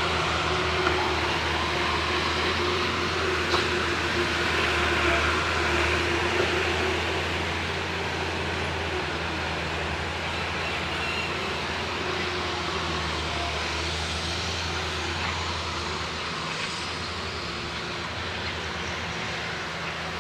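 An engine running steadily: a constant low hum under a broad rushing noise.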